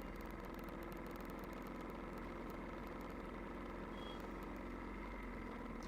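Royal Enfield Bullet's single-cylinder engine running at a steady, even pace.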